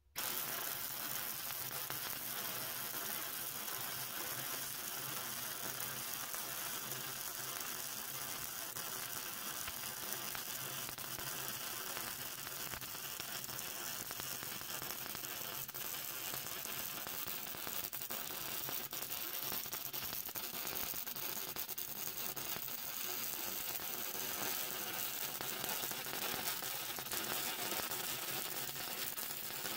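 Electric arc welding: a steady crackling sizzle of the arc, starting abruptly when the arc is struck and held without a break.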